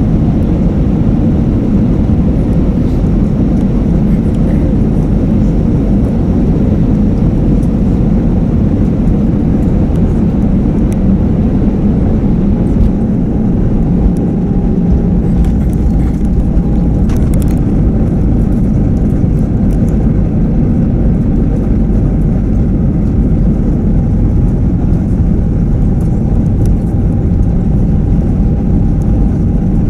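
Steady cabin noise inside an Airbus A320 airliner during the landing phase: a loud, even rumble of engines and airflow. A faint steady whine joins about twelve seconds in, with a few light clicks soon after.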